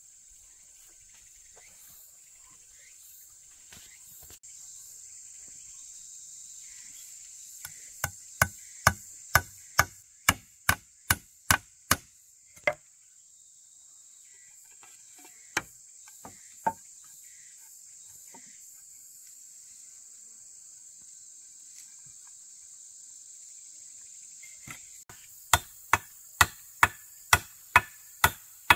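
Forest insects droning steadily at a high pitch, with runs of sharp, even strikes of a hand tool on wood at about two to three a second: about a dozen near the middle, two single strikes a few seconds later, and another quick run near the end.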